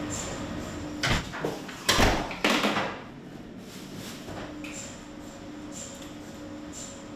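Philips MRI scanner running a scan sequence: a steady, evenly repeating pulsed tone. From about a second in to about three seconds in it is interrupted by a few loud noisy knocks and rushes, then the pulsing goes on.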